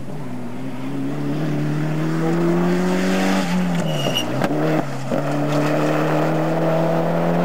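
Rally car engine running hard at high revs, its pitch climbing slowly, then dropping sharply about halfway with a few sharp cracks before climbing again. It cuts off abruptly at the end.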